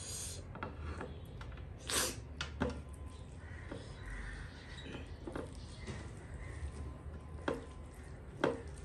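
Close-up eating sounds: irregular wet smacks and clicks from chewing and from fingers mixing rice and chicken curry in a steel plate, the loudest about two seconds in and twice near the end, over a low steady hum.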